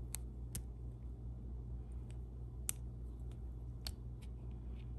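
Small sharp metal clicks as the tips of bent-nose pliers pick at and catch the wire retaining clip in the top of a hydraulic roller lifter. There are a handful of irregularly spaced clicks among fainter ticks, over a low steady hum.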